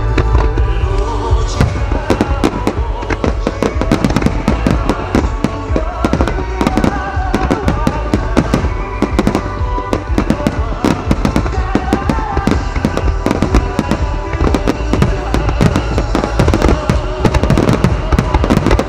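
Design starmine fireworks barrage: shells launching and bursting in quick succession, many sharp bangs and crackles, over accompanying music.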